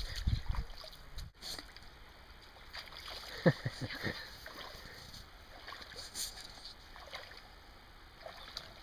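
People wading through knee-deep water, feet sloshing and splashing with each step, with a few short knocks about three and a half seconds in.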